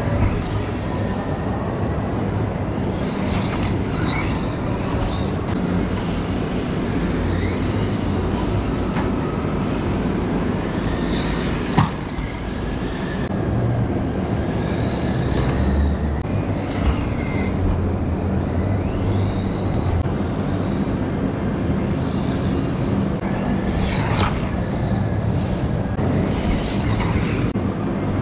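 Brushed electric motor and drivetrain of a DEERC 9300 1/18 RC truck whining, the pitch rising and falling again and again as the throttle is worked, over a steady low rumble. A single sharp click about twelve seconds in.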